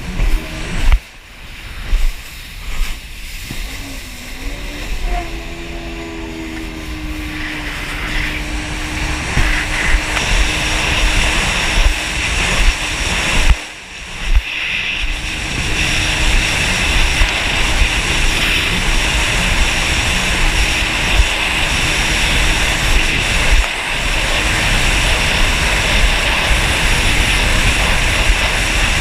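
Jet ski engine picking up revs and then running steadily at speed, with wind buffeting the microphone. Gusty thumps at first, then the engine note climbs about five seconds in and the run grows gradually louder.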